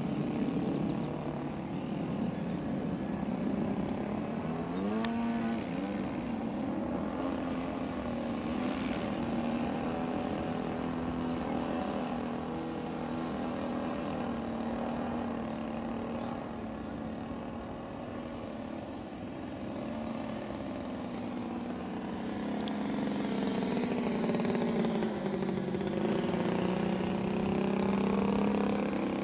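The 30cc two-stroke gas engine of an MX2 aerobatic RC plane running in flight, its pitch rising and falling several times as the throttle changes. It is loudest near the end, where the pitch dips and then climbs again.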